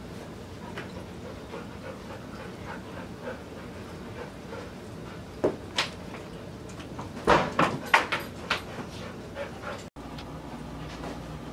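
A dog whimpering and whining over a steady background hiss, with a run of louder, sharp sounds about seven to eight and a half seconds in.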